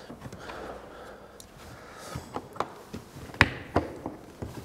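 Plastic latches of a hard-shell drone transport case being snapped open, a series of sharp clicks and knocks in the second half, the loudest about three and a half seconds in.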